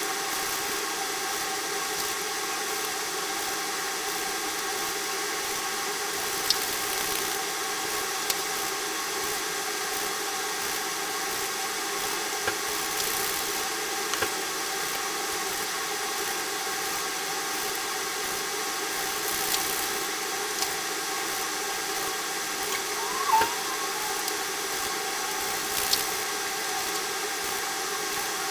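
Steady mechanical hum and hiss made of several unchanging tones, with a few faint clicks now and then and a brief chirp-like pitch glide near the end.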